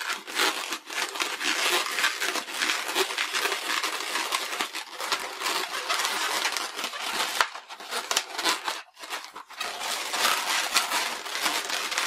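Inflated latex 260 modelling balloon being twisted and pressed by hand: a dense run of latex rubbing and crinkling, with a short lull about nine seconds in.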